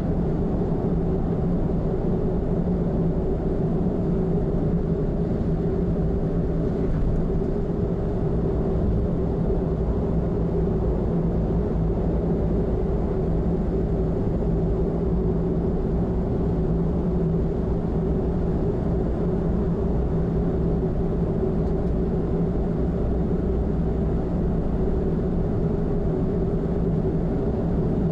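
Steady running noise of a car cruising at expressway speed: a continuous rumble of tyres and engine with a constant low hum and no changes.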